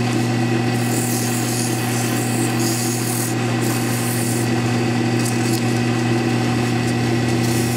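Wood lathe running with a steady motor hum while folded sandpaper is held against the spinning wooden handle, giving a scratchy hiss that comes and goes as the paper is moved back and forth.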